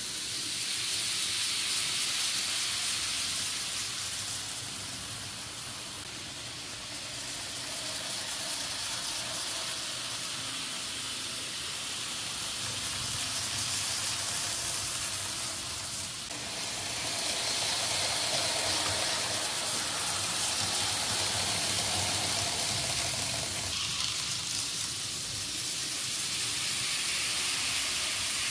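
N-gauge model trains, among them a Shinkansen set on the elevated viaduct, running on the layout's track: a steady rushing hiss of wheels and motors that swells and fades in loudness several times.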